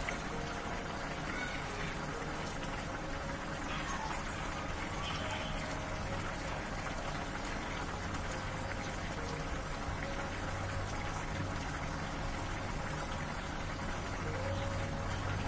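A pan of curry with thin gravy simmering on a gas stove, bubbling steadily with a fine, rain-like crackle.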